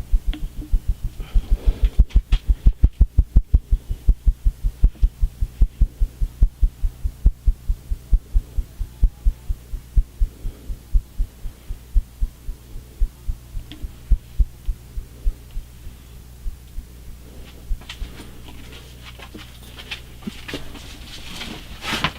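Tatung CFC-52 ceiling fan coasting down after being switched off: a regular low thumping as the blades sweep past, slowing from about four beats a second to about two and fading out about eighteen seconds in. The long spin-down is the sign of smooth, good bearings.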